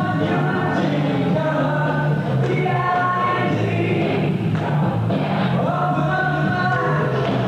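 Live rock band playing loud and steady, with sung vocals over bass, drums and guitars.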